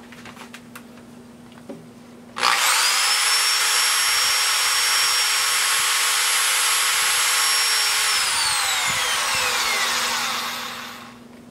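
Corded electric drill with a brushed universal motor, running free with nothing in the chuck. It starts suddenly about two and a half seconds in, runs at a steady high whine for about five seconds, then winds down in pitch and coasts to a stop near the end.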